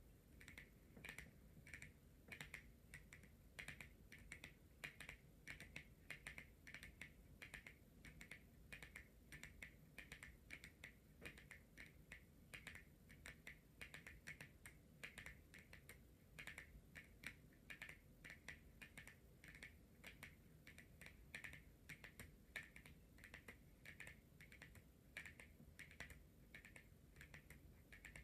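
Long natural fingernails tapping on tarot cards: a faint, quick, uneven stream of light clicks.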